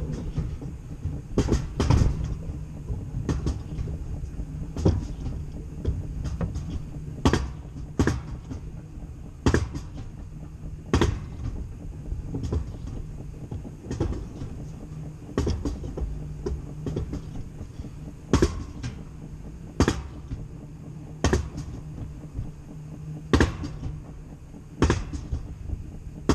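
Mountain coaster cart riding up the uphill section of its steel tube track. A steady low rumble of the wheels on the rails is broken by a sharp clack about every second and a half.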